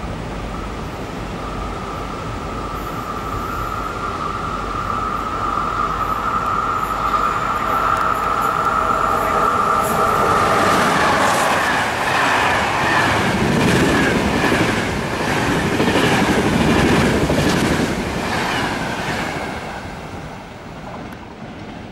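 Electric-locomotive-hauled passenger train approaching and passing through a station. A steady high whine grows for about ten seconds. Then the train goes by with loud, rhythmic clacking of wheels over rail joints, and the sound fades near the end as it moves away.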